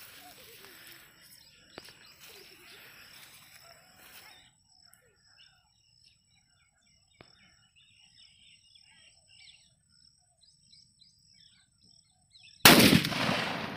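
Lit fuse of a large country firecracker (a 3/4 kg nattu vedi) hissing and sputtering for about four seconds, then a lull with birds chirping. Near the end comes a single very loud bang as the cracker explodes, with the blast echoing and dying away.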